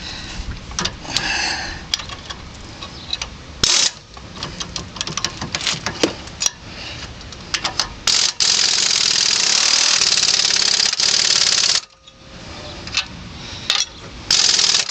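Impact wrench running nut-down on a new sway bar end link: a short burst a little under four seconds in, a long run of about three and a half seconds past the middle, and a short final burst at the end. Metal clinks from the parts and tools come in between.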